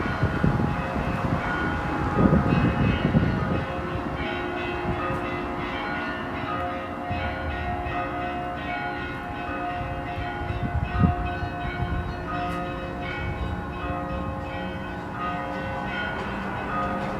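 Several church bells ringing an Easter peal, struck over and over so their tones overlap in a continuous clangour. A low rumble sits underneath for the first few seconds.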